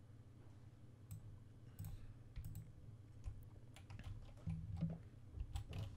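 Faint, irregular clicks of a computer mouse and keyboard, a dozen or so scattered through, over a low steady hum.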